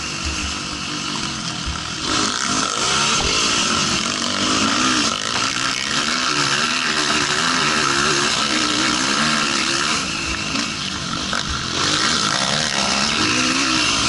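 Racing quad's engine running hard on a dirt motocross track, its revs rising and falling over and over through shifts and throttle changes.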